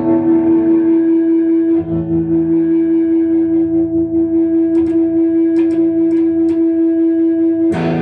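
Jerry Jones baritone electric guitar through a 1961 Fender Tremolux tube amp playing the end of a slow 12-bar blues: one long held note rings over a lower note that changes about two seconds in, with a few picked notes in the middle. Near the end a final chord is struck and rings out.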